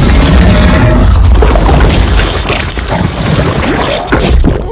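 Film soundtrack sound effect of an alien cat creature (a Flerken) attacking: a loud, dense, deep rumbling creature sound that flares up briefly near the end.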